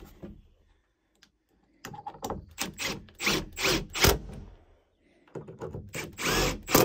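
Power drill driving screws into wooden door trim: a few short bursts, a brief pause, then a longer run near the end.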